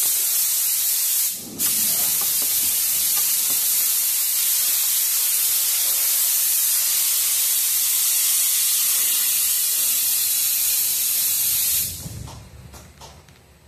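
Steady, loud hiss of spray inside a CNC lathe's enclosure, with a brief break about a second and a half in. The hiss cuts off about twelve seconds in, leaving a few faint clicks.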